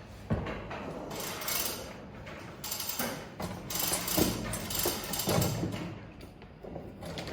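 Irregular knocks, clicks and rustling of equipment being handled, with a sharp knock about a third of a second in and a cluster of knocks around the fourth and fifth seconds.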